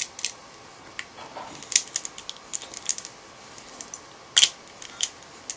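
Scattered light clicks and taps of small metal and plastic parts being handled and fitted while reassembling an airsoft Version 3 gearbox, with one sharper click about four and a half seconds in.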